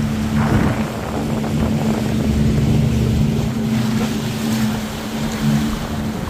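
Jet ski engine running at a steady pitch over a hiss of rushing water and wind, with a brief surge of spray noise about half a second in.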